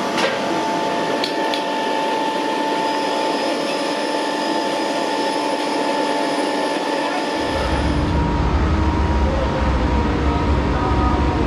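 Steady mechanical hum of running machinery with several fixed tones, with a few light clicks near the start; a deep low rumble joins about seven seconds in.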